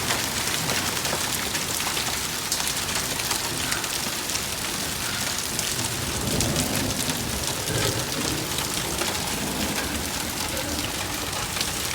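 Hail and heavy rain coming down hard: a dense steady hiss with many sharp clicks of hailstones striking.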